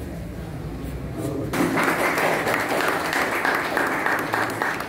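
Audience applause: many hands clapping, starting suddenly about one and a half seconds in over a low murmur of room sound.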